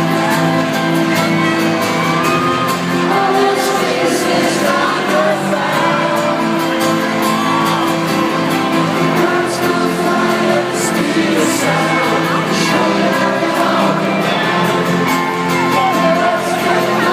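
Live band playing a song in a stadium, with sung vocals over sustained instruments and some crowd cheering.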